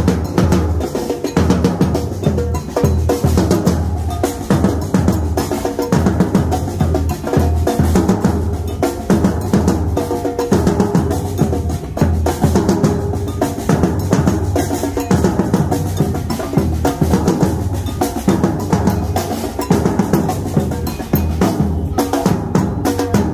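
Street drum troupe playing large bass drums and smaller drums with sticks, a loud, continuous driving rhythm of many overlapping strokes.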